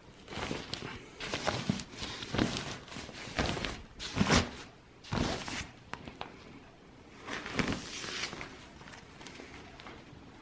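Non-woven fabric protective sleeve rustling in a string of irregular swishes as it is pulled off an iMac, loudest about four seconds in.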